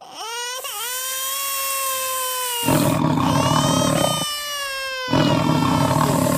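Sound effects of a baby crying in long, drawn-out wails. Two big-cat roars, as from a lion or tiger, come in over the crying about three seconds in and again near the end.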